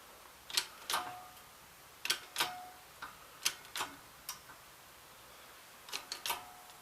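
Sharp metal-on-metal knocks and clicks, about a dozen at irregular intervals with a cluster near the end, a few leaving a brief ring, from work on a bent steel pallet fork as it is forced straight.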